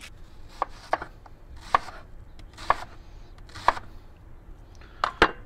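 Chef's knife slicing an onion on a wooden cutting board: a sharp knock each time the blade meets the board, about one cut a second, with two quick cuts near the end.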